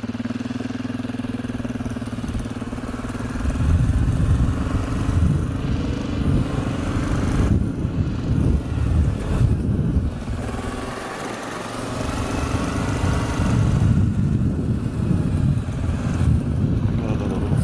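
Suzuki KingQuad 750 ATV's single-cylinder four-stroke engine running steadily at first, then getting louder and rougher about three seconds in as the quad pulls away and rides on. It eases off briefly about two-thirds of the way through, then picks up again.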